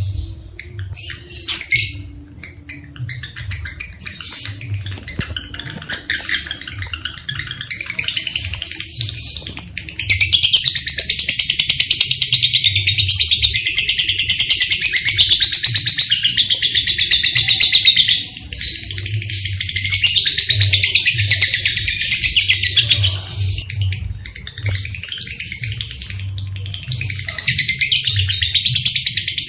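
Lovebirds calling in a high chatter. A few scattered chirps come first. About a third of the way in, a loud, continuous rapid chattering trill begins, the long 'ngekek' song of a lovebird. It breaks off briefly past the middle and then resumes.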